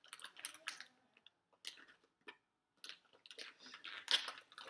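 Small plastic make-up containers clicking and rattling as they are handled and searched through, in irregular bursts, the loudest about four seconds in.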